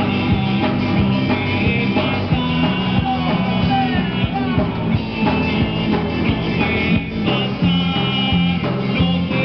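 Live rock band playing: electric and bass guitars under a singer on a microphone, with a steady beat of sharp hits.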